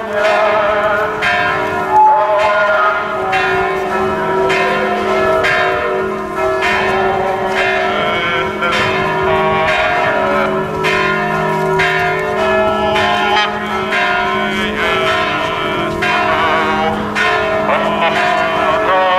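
Church bells ringing, struck about once a second with their long tones overlapping over a steady low hum.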